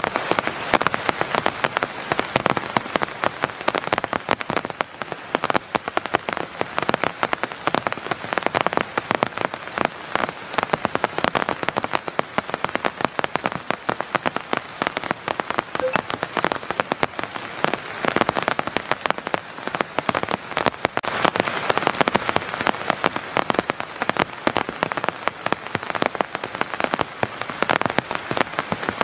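Heavy pouring rain: a steady, dense patter of countless drops.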